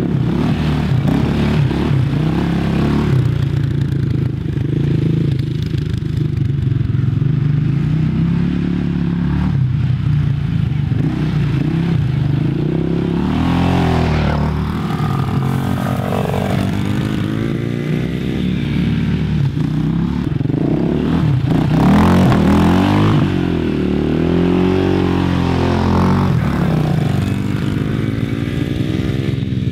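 Quad bike (ATV) engines running and revving up and down over and over as the quads ride around.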